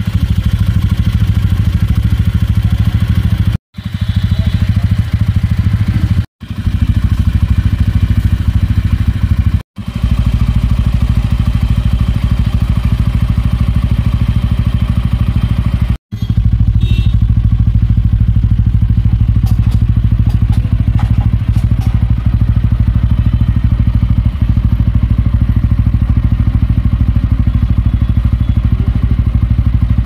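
TVS Ronin 225's single-cylinder engine idling steadily through its exhaust. The sound is broken by four brief gaps in the first half.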